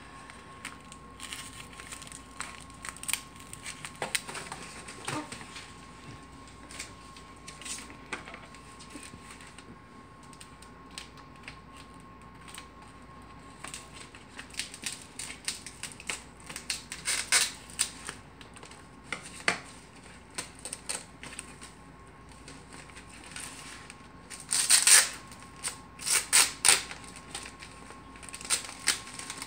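Phone packaging being unwrapped by hand: scattered clicks, rustles and crinkles of paper and plastic wrapping, with a few louder crinkling bursts near the end.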